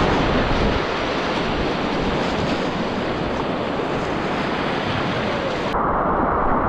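Rushing whitewater of river rapids, a dense steady rush with wind buffeting the microphone. Near the end the sound changes abruptly to a duller, narrower rush.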